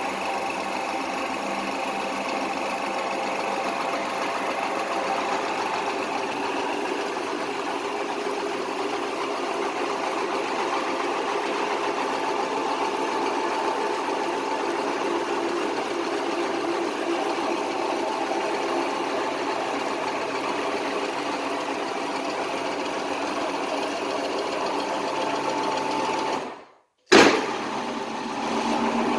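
Hofmann GTE 2500 spindle car lift running, its electric drive turning the screw spindle with a steady mechanical clatter: the spindle rattling in the middle of its travel, which the owner suspects may come from defective guide rollers. Near the end the sound cuts out for a moment, then returns with a sharp click.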